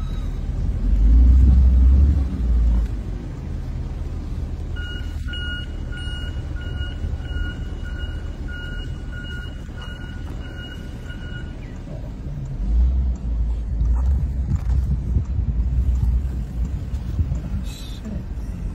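Car driving, its low road and engine rumble heard from inside the cabin, swelling heavier in two stretches, near the start and in the last third. Midway an electronic beep repeats about twice a second for some seven seconds, then stops.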